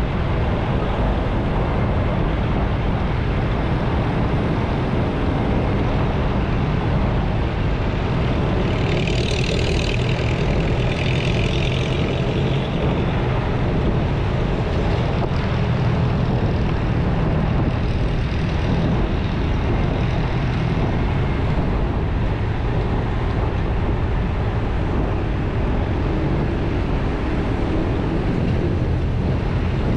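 Motorcycle riding in town traffic: steady engine and road noise, heaviest in the low rumble, with a brief higher hiss about nine seconds in.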